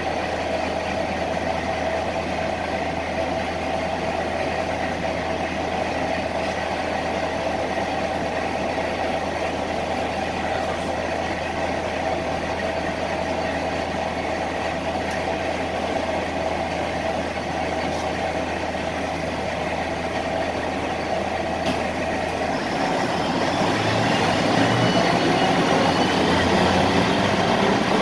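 Ikarus 260 city bus's diesel engine idling steadily, heard from inside the passenger cabin. About 23 seconds in, it revs up with a rising whine and gets louder as the bus pulls away.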